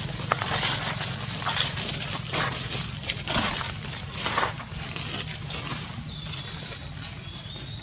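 Long-tailed macaques scrambling over dry leaf litter: a busy run of short rustles and crackles and brief animal cries in the first four or five seconds, thinning out after that.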